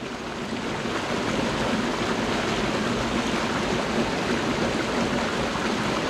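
Mountain stream flowing over rocks: a steady rush of water.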